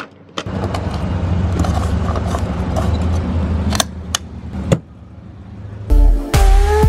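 A few sharp clicks at a fuel pump and a fuel filler cap being twisted open, over a steady low vehicle rumble. Music with a beat comes in near the end.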